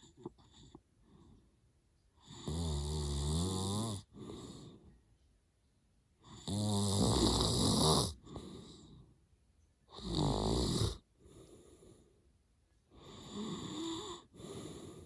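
A man snoring hard in deep sleep: four loud snores about every three to four seconds, each followed by a quieter breath.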